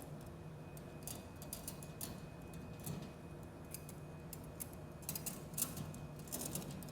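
Metal surgical instruments (forceps, clamps and scissors) clicking and clinking lightly as they are handled and gathered together. The clicks come in loose clusters, busiest about five to six and a half seconds in.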